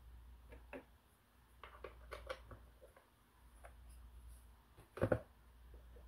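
Light plastic clicks and knocks as a robot vacuum's main roller brush and brush guard are handled, with a louder double clack about five seconds in.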